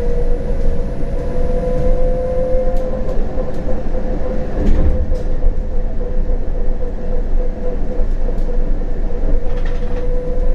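CAF Urbos 100 tram running on rails: a steady electric traction whine over the rumble of the wheels, with a few faint clicks. The whine sags a little in pitch partway through and climbs again near the end.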